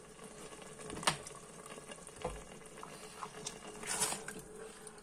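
Chicken in tomato-and-cream sauce bubbling softly in an electric pressure cooker's pot on its sauté setting, with two light knocks and then a silicone spatula stirring through the sauce about four seconds in.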